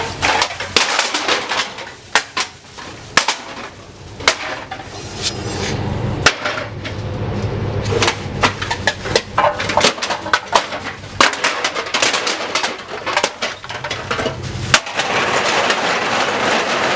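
Empty aluminium cans clattering as they are tipped into a scrap yard hopper: a dense run of sharp clinks and knocks. A low steady hum sits under it for much of the time.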